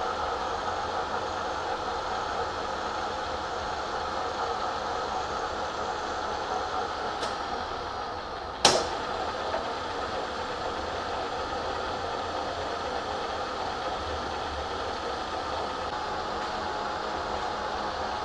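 Bridgeport milling machine spindle running steadily at reduced speed while power-tapping a 5/16-18 thread into a steel flywheel hole. A sharp click about nine seconds in.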